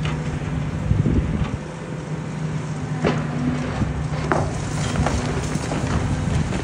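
Volvo high-reach demolition excavator running steadily, with sharp cracks and knocks of concrete breaking and rubble falling as it works on the building; a heavy low thud about a second in and several sharp cracks a few seconds later.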